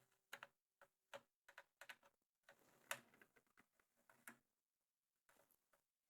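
Faint, scattered small clicks and taps, the clearest about three seconds in, from a multimeter and its probes being handled while a fuse in an amplifier is tested.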